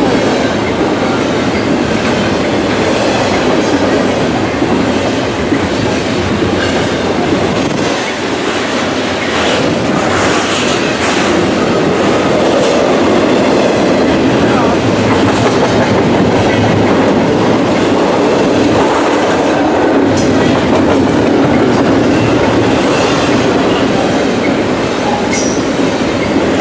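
BNSF double-stack intermodal freight train passing close by: loud, steady noise of loaded container well cars rolling over the rails.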